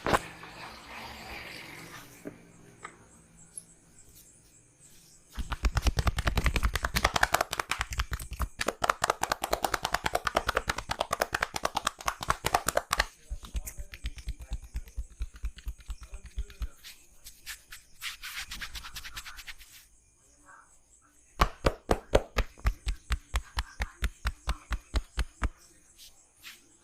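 Rapid rhythmic hand strikes of a percussive body massage: the barber's hands slapping and chopping on the skin at about five strokes a second, in two long runs.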